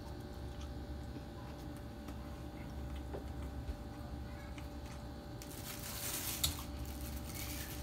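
Low steady hum of a quiet room. From about five and a half seconds in, a thin plastic bag crinkles and rustles as a wrapped bun is handled and opened.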